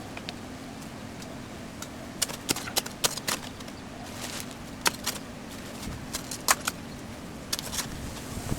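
Shovel digging a post hole in sandy, stony ground: irregular sharp scrapes and clinks of the blade, coming in short clusters.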